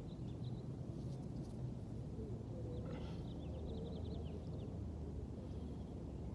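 Outdoor ambience: a steady low background rumble, with a small bird chirping faintly near the start and in a quick run of short chirps about three seconds in.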